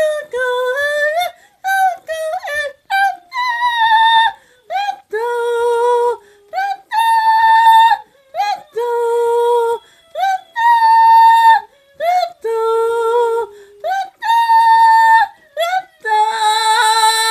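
High-pitched voices singing in short held notes with sudden leaps in pitch, yodel-like, in phrases of about a second with brief breaks between them.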